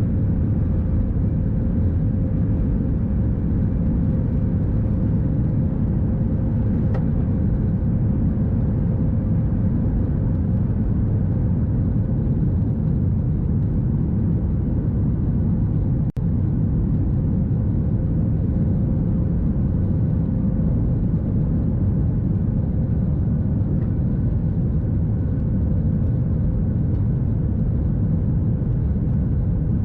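Steady cabin noise of a Boeing 737 MAX 8 with its CFM LEAP-1B engines running: a deep, even rumble with a faint steady hum on top. The level dips out for an instant about sixteen seconds in.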